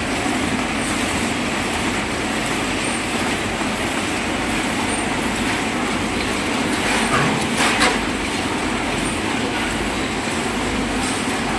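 Steady mechanical din of matchbox factory machinery running, with a brief clatter a little past halfway.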